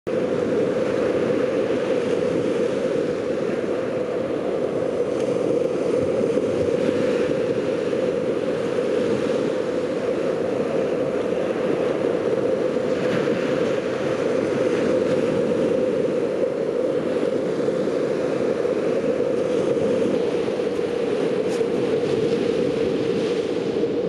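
Storm surf washing onto a sandy beach, mixed with wind on the microphone: a steady, loud rush of noise that swells slightly now and then.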